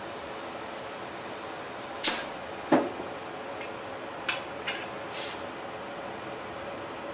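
Compressed air hissing steadily through an air chuck into the air valve of a water heater expansion tank as its precharge is pumped up to about 50 PSI. About two seconds in the flow stops with a sharp burst of hiss, then comes a click and several short puffs of air at the valve.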